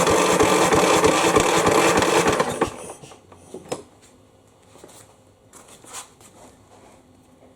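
Electric starter cranking a Craftsman push mower's single-cylinder engine with the spark plug out and a compression gauge fitted: a steady cranking with even pulses, one per compression stroke, that stops about two and a half seconds in. A few faint clicks follow.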